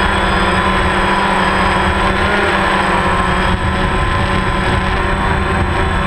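DJI Phantom quadcopter's electric motors and propellers running steadily in flight, a loud hum made of many steady tones, picked up close by a GoPro riding on the drone in a hard case with its back open.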